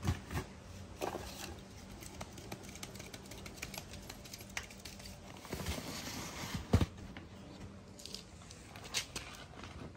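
Quiet kitchen handling sounds: soft pats and rustles with a few light knocks, the sharpest about seven seconds in.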